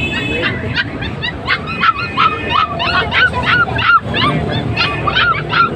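Dogs yelping and whimpering: many short, high yips follow one another and overlap, several a second.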